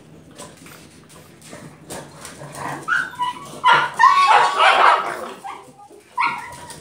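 A pug barking and yipping in short, loud bursts that start about halfway through, with a longer whining bark among them. It is barking up at a person for a ball that has been made to vanish.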